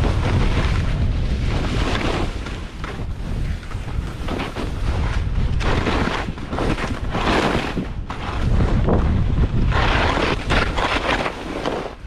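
Wind buffeting a helmet camera's microphone during a ski descent, a steady rumble, with the hiss and scrape of skis sliding over packed snow swelling at several points.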